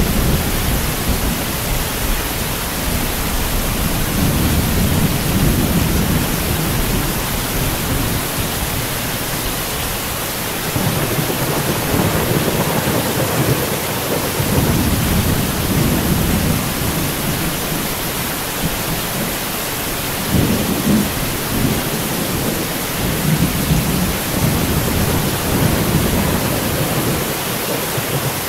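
Heavy rain falling as a steady hiss, with thunder rumbling low beneath it in several long rolling swells.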